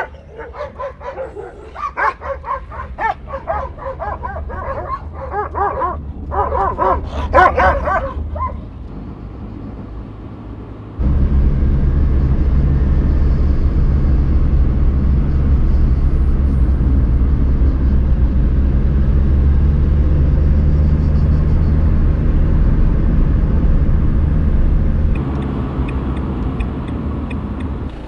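A dog gives a string of short calls for about eight seconds. About eleven seconds in, a car engine comes in abruptly and runs steadily, getting quieter near the end.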